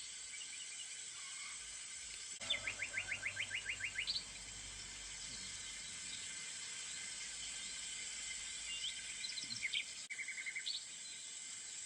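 Songbirds calling: a fast run of about a dozen repeated chirping notes about two and a half seconds in, a few scattered short chirps later, and a shorter run of notes near the end, over a steady high hiss.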